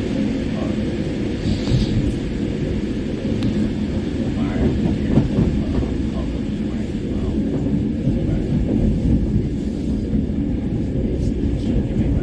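Mat '64 electric multiple unit train running, heard from inside: a steady low rumble of the wheels on the rails.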